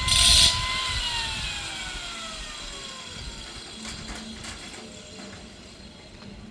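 Electric power tool motor whining, then switched off: after a last burst of loud hiss in the first half-second, its whine falls steadily in pitch and fades as it spins down. A few faint clicks follow near the end.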